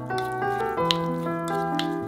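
Background instrumental music with sustained, gently changing notes. Underneath are a few light clicks and the slosh of a wooden spoon stirring a liquid sauce in a glass bowl.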